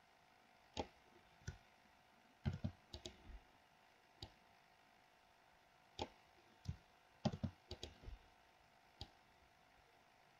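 Computer mouse and keyboard clicks: about fifteen sharp, irregular clicks, some in quick runs, over a faint steady hum.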